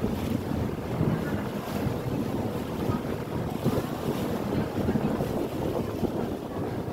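Wind buffeting the microphone, with choppy sea water sloshing around a small inflatable boat, in a steady gusty rush.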